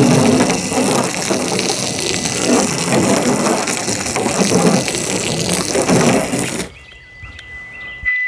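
Water from a garden-hose foam gun set to plain rinse, spraying and splattering against a car's side panels and doors, rinsing off soap suds. The spray cuts off suddenly about two-thirds of the way through.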